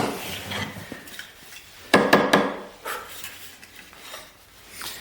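Metal objects clattering against a hard surface: a sharp knock at the start and a louder clatter about two seconds in with a brief metallic ring, then quieter handling noises.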